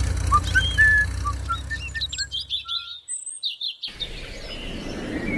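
Songbirds chirping in short whistled calls. Most of the sound cuts out briefly about three seconds in, then a steady hiss like rain begins to build.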